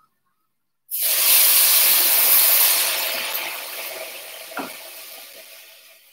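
Boiling water from an electric kettle poured into a hot pot for rice, starting suddenly with a loud sizzling hiss that fades away over several seconds. A short knock comes near the end.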